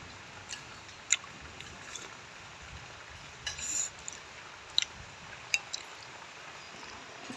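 A person eating instant noodle soup with crackers: quiet chewing with a few sharp clicks, and a brief louder noise about three and a half seconds in.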